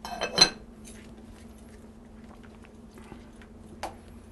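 Silicone spatula stirring a thick sour-cream sauce in a nonstick skillet: soft scraping and squishing, with a sharp knock about half a second in and a light click near the end. A steady low hum runs underneath.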